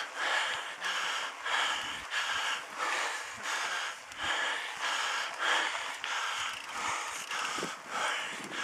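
A cyclist panting hard close to the microphone while riding, with a breath about every half second.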